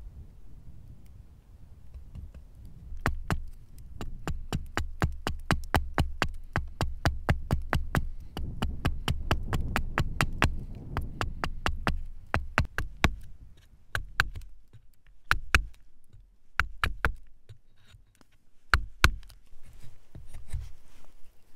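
A quick, even run of sharp taps, about five a second, that thins out after about twelve seconds into a few scattered taps.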